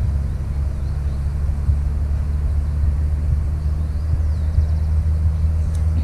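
A steady low rumble, with a few faint high chirps now and then.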